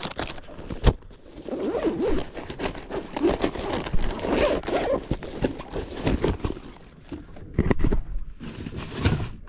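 A zipper is drawn around a soft-bait binder case to close it, a long scratchy run of sound. Near the end come a few sharp knocks as the case is put into a boat storage compartment.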